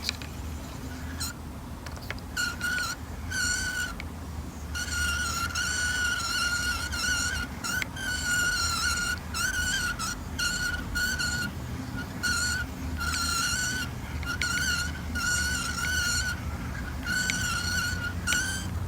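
Daiwa Revros LT 2500D-XH spinning reel being cranked, its gearing giving a thin, high whine that comes and goes in short stretches with brief breaks between turns. This is the reeling noise of the reel, heard over a steady low rumble.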